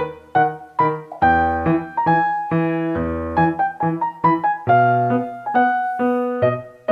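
Piano music: a steady run of struck notes and chords, each note starting sharply and fading away.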